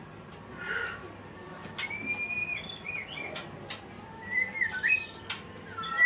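White-rumped shama (murai batu) singing in short phrases of clear whistled notes, some held level and some sliding up or down, with a few sharp clicks in between.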